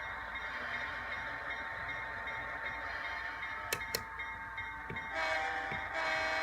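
DCC sound decoder in an HO-scale FP7 diesel model locomotive, playing a steady diesel engine sound through its small speaker, with two sharp clicks near the middle. Near the end the horn sounds twice, a short blast and then a longer one.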